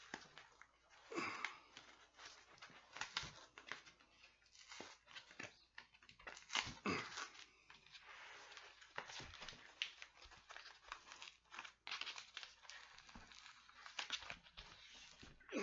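Packing tape and a cardboard shipping box being picked at, pulled and torn by hand: irregular crinkling, scratching and tearing noises from a box sealed with a lot of tape.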